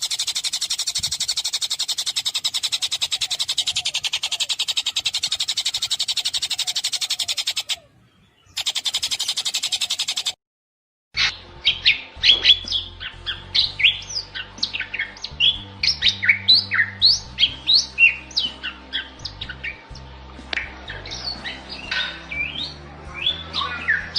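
Recorded songbird song. A very fast, dense, high trill runs with a short break for about ten seconds and stops. After a second's pause comes a run of short, sharp chirps and whistles that slide up and down in pitch, over a low hum.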